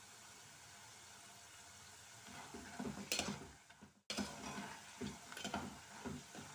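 Plantain chip slices deep-frying in hot oil in an aluminium pot: a steady sizzle, joined about two seconds in by a slotted spoon stirring and scraping through the slices. The sound cuts out briefly just past the middle. The oil is still bubbling, the sign that the chips are not yet fully fried.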